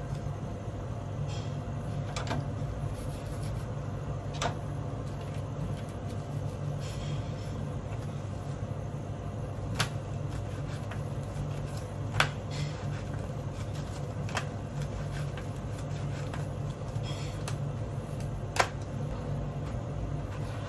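Steady low machine hum, with a handful of sharp knocks and clicks as hands work a bamboo sushi mat on a plastic cutting board while rolling a maki.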